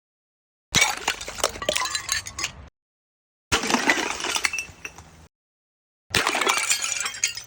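Glass breaking, three separate times: each is a sharp smash followed by a second or two of scattered pieces clinking down, with dead silence between them.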